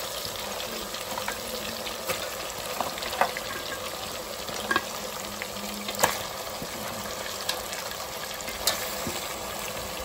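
Goat head and trotter pieces sizzling as they go into hot oil and masala in a steel pressure cooker: a steady frying hiss with a sharp click or knock every second or so.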